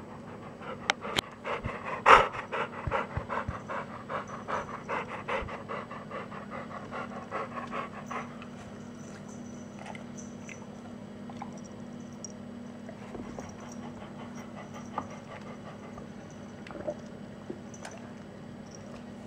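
A dog panting fast, about five breaths a second, from about a second in until about eight seconds in, loudest near the start. After that only a few light taps remain over a steady low hum.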